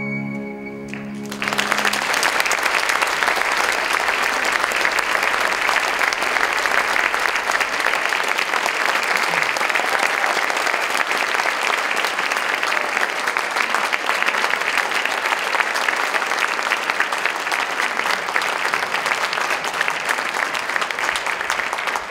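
The closing chord of string music dies away about a second in. A theatre audience then breaks into steady applause, which fades out near the end.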